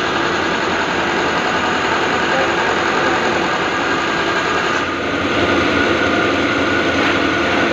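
Diesel fuel-injection pump test bench running, driving a Belarus tractor's inline high-pressure injection pump during calibration: a steady mechanical run with a dense, even clatter. The sound shifts slightly about five seconds in.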